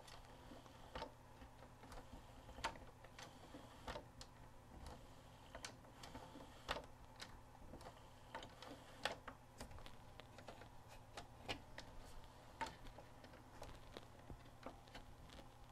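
Faint, irregular small clicks and taps of hands handling the plastic and metal parts of an opened JVC XL-M407 CD changer's mechanism, a few a second at most, over a low background hum.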